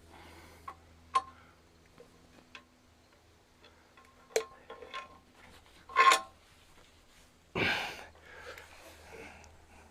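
Scattered light clicks and clinks of handling, several with a short metallic ring, the loudest about four and a half and six seconds in, and a brief rush of noise about three quarters of the way through.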